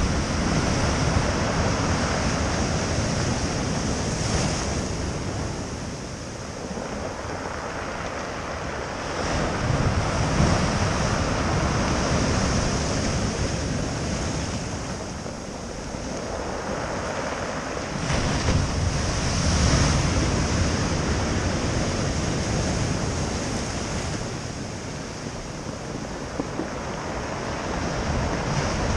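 Atlantic surf breaking at high tide: a continuous wash of waves that swells and falls back about every nine seconds, with low rumbling surges as each set comes in. Wind buffets the microphone.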